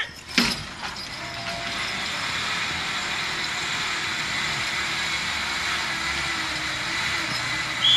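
Horse-pulling dynamometer truck running steadily under load as a team of draft horses pulls it, its hydraulic pump braking the truck to hold the pull's tension. A sharp knock about half a second in.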